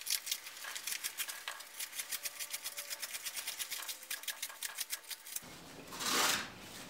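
Knife blade slicing through corrugated cardboard in a cardboard edge-retention cut test: a run of quick crackling clicks as strips are cut off, then a louder, longer slicing stroke near the end. The hand-forged 52100 steel blade is some 470 cuts in and starting to snag.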